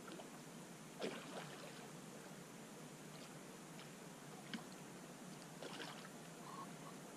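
Faint small splashes on a still pond's surface, one about a second in and another around six seconds, with a single sharp click between them.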